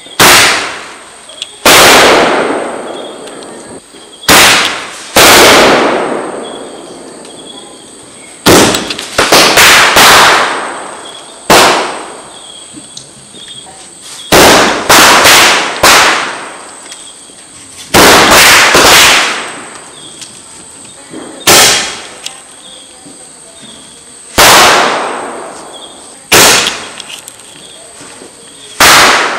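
Firecrackers going off one after another: about twenty sharp bangs at irregular intervals, some in quick runs of two to four, each fading away in a long echo.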